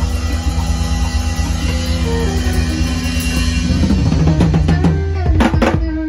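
Live band of drum kit, bass, keyboard and electric guitar playing together at a sound check. Low notes are held over a steady beat, the notes change about four seconds in, and a quick run of drum hits comes near the end.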